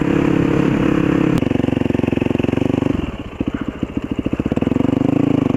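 Yamaha WR450F single-cylinder four-stroke dirt bike engine running at cruising speed, then throttled off about three seconds in, dropping to a slow, pulsing low-rev beat before picking up again near the end.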